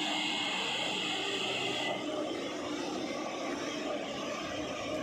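JCB backhoe loader's diesel engine running steadily as it drives through shallow river water, with water splashing around its wheels. The sound drops a little about two seconds in.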